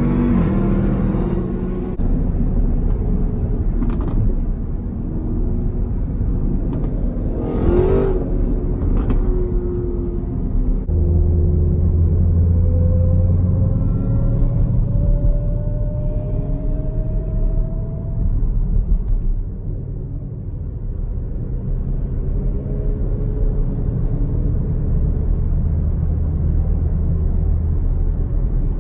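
Car engine and tyre/road noise heard from inside a car cruising at freeway speed, a steady low hum with the engine note rising slowly in the middle, and a brief thump about eight seconds in.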